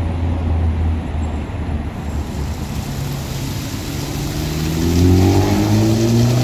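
City road traffic: a motor vehicle's engine hums low and steady, then climbs in pitch as it speeds up about five seconds in, over tyre hiss that swells from about two seconds in.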